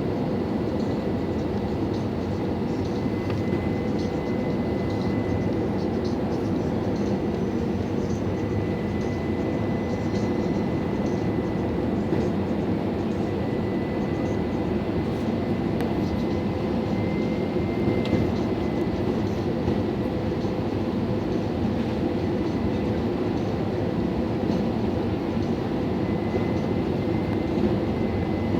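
Airbus A321-200 cabin noise during the approach: a steady rush of engines and airflow, with a faint steady high whine over it.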